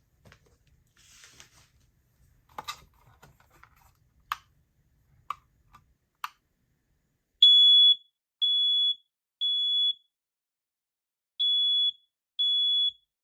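First Alert smoke alarm sounding its test: after a few faint handling clicks, its horn gives loud, high-pitched beeps of a single tone, three in a row, a pause, then three more, in the temporal-three evacuation pattern.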